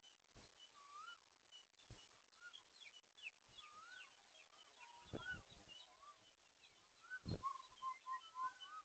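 Several wild birds calling: clear whistled notes that rise and fall, with short high chirps repeating around them. Two dull thumps come about five and seven seconds in.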